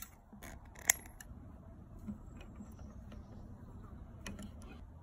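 Small brass parts of an antique blowtorch's valve clicking and tapping together as they are handled and fitted by hand: one sharp click about a second in, then a few lighter ticks.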